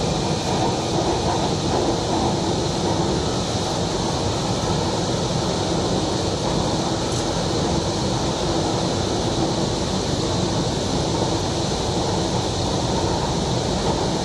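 Inside a Kochi Metro train car running between stations: a steady rumble and rush of wheels and motors, with a faint even hum underneath.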